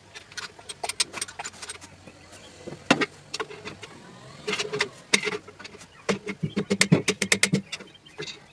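Sharp metallic clicks and knocks from tools working on an LS V8 engine block. About six seconds in, a power tool starts rattling rapidly in short bursts with a motor hum underneath, on the bolts of the bottom end.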